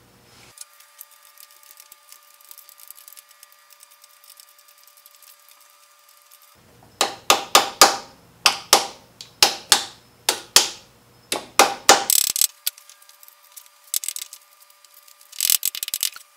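Hand ratchet clicking as it loosens the camshaft bearing cap bolts on a Mazda BP 1.8 twin-cam head: a run of sharp metallic clicks, each ringing briefly, from about seven seconds in for some five seconds, and a short quick cluster again near the end.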